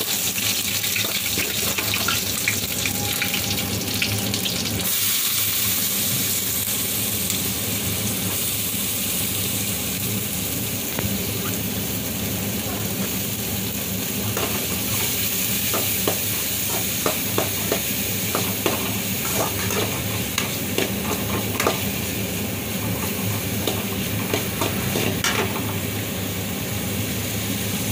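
Garlic and chopped onions sizzling steadily in hot oil in an aluminium kadai, stirred with a perforated steel spoon that scrapes and clinks against the pan, mostly in the second half.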